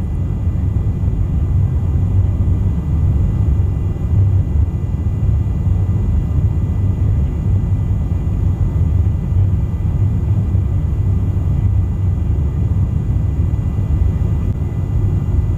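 Steady low drone of a refuelling tanker aircraft in flight, heard from inside the cabin: engine and airflow noise, with a faint steady high whine above it.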